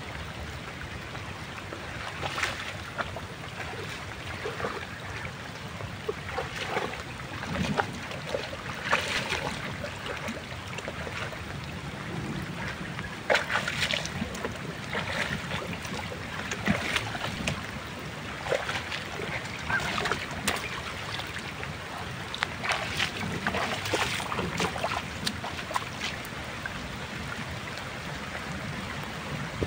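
Steady rush of rain and flowing river water, with irregular short splashes throughout.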